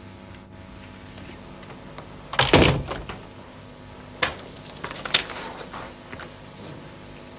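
Wooden door being opened and shut, with one heavy thunk about two and a half seconds in, then a few sharper clicks and knocks.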